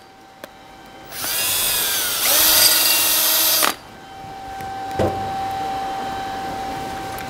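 Cordless drill motor run in two bursts, its pitch rising and falling as the trigger is squeezed and eased, then stopping. Afterwards a quieter steady hum with a light knock about five seconds in.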